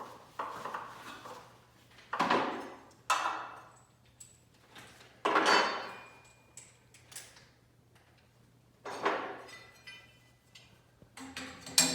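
Steel garage-door hardware, the torsion system's center bearing bracket and its fittings, clanking and rattling as it is handled, in about six separate clatters with brief metallic ringing; the loudest come a little after 2 s and about 5 s in.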